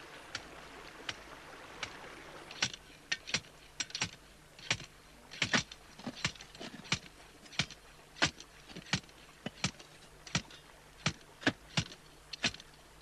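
Handheld radiation counter clicking at irregular, random intervals, about one to two clicks a second, as it picks up radioactivity from the ground.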